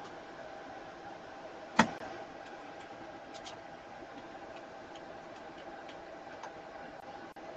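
Steady background hum with one sharp click a little under two seconds in and a few faint ticks soon after.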